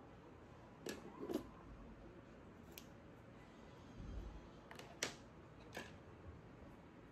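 Makeup items being handled and put down: a few light clicks and taps, the sharpest about five seconds in, with a soft low bump around four seconds in.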